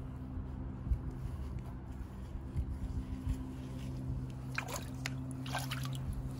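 Shallow water splashing in a plastic paddling pool: two short splashes about four and a half and five and a half seconds in, over a steady low hum.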